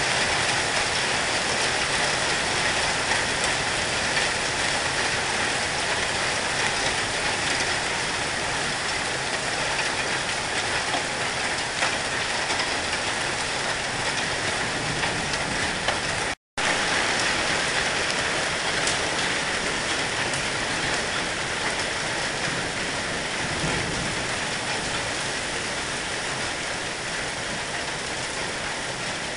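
Hailstorm: hailstones and rain pelting down on grass and gravel, a dense, steady clatter. It cuts out for a split second about halfway through, then carries on a little fainter.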